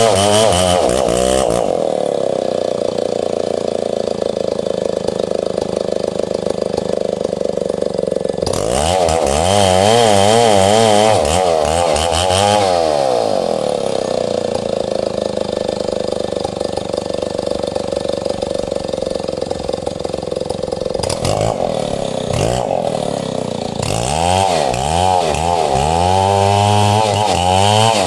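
Stihl 070 two-stroke chainsaw running hard while cutting wood. The engine pitch wavers up and down for stretches near the start, in the middle and near the end. In between it holds steadier for several seconds at a time, as it does when the bar is loaded in the cut.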